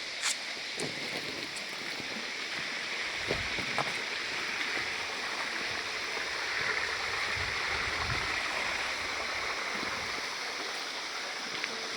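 Steady rush of water, an even hiss that holds throughout, with a few brief low bumps in the middle.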